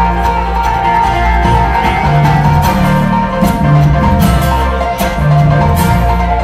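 Bluegrass string band playing: banjo and acoustic guitar picking, mandolin, and upright bass notes underneath.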